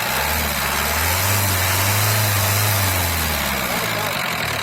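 Tata Sumo's common-rail diesel engine revved up once and let back down to idle. It rises over about two seconds, then falls back to idle just before the end. The engine has a new inlet metering valve fitted, and the rev rises and falls back smoothly with no misfire.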